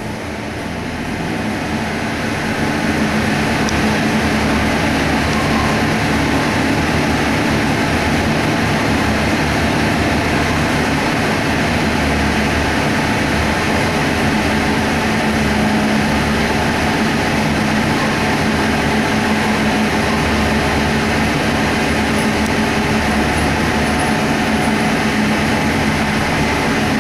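632 cubic inch big-block Ford stroker tractor-pulling engine on an engine dyno, running loud and steady at an even speed. It grows louder over the first few seconds and then holds without revving.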